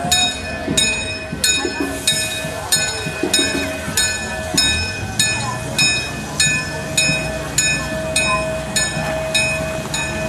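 A narrow-gauge park locomotive's bell ringing steadily, about one and a half strokes a second, each stroke hanging on with a ringing tone, over a low rumble from the train that grows about halfway through as it rolls in.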